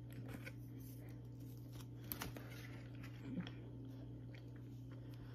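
Faint chewing of a soft cinnamon roll with the mouth closed, a few small mouth clicks, over a steady low hum.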